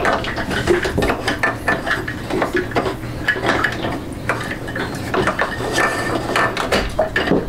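Seawater spurting up through an open through-hull fitting into the bilge after the tri-sensor is pulled out, splashing and spattering with irregular clatter as hands work at the fitting.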